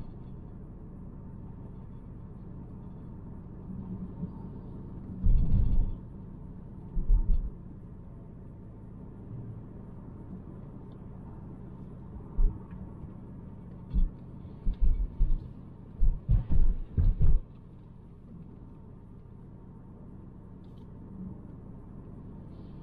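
Steady low rumble of road and tyre noise heard inside the cabin of a 2018 Volvo V90 T5 Cross Country cruising. It is broken by several short, loud low thumps, with a quick run of them about three-quarters of the way through.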